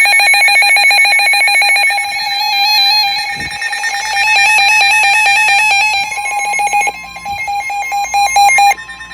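NOAA Weather Radio receivers alerting to a Special Marine Warning. They play the warbling SAME digital header tones over a rapidly pulsing alarm beep, while a steady warning tone comes in faintly about six seconds in. The loud beeping and data tones cut off near the end.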